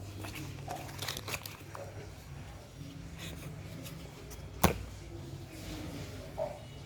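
Hands handling unboxing packaging: light rustling and small scattered clicks, with one sharp click about two-thirds of the way through.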